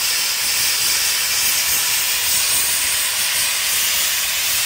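Live-steam fire-tube boiler under pressure, with steam venting from the top of the boiler in a loud, steady hiss.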